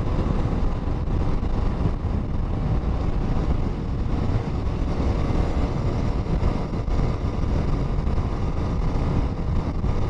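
Bajaj Pulsar RS200 motorcycle with its single-cylinder engine running steadily under way, mixed with rushing wind and road noise on the rider's microphone.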